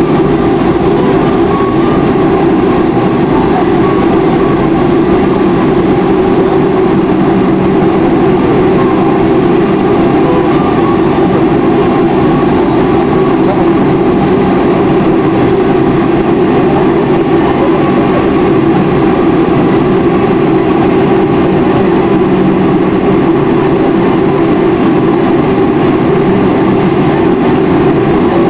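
Boeing 737-400 cabin noise as the airliner taxis on the runway after landing: its CFM56 jet engines and rolling noise make a loud, steady hum with no change in pitch or level.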